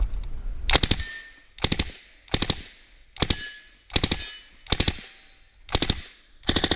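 Submachine gun firing short full-auto bursts of three to five rounds: eight bursts in quick succession, a little under a second apart.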